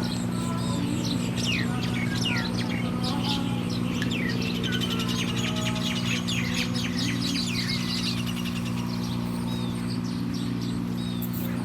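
Small birds chirping busily, with many quick high chirps, short downward-sweeping notes and rapid trills, over a steady low hum.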